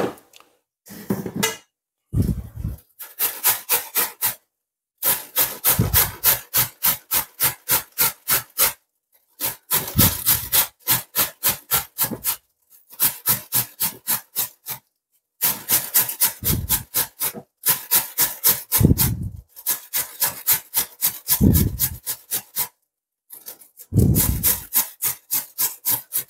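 White cabbage being shredded on a stainless steel box grater: runs of quick rasping strokes, about four a second, broken by short pauses, with a dull knock as some runs begin.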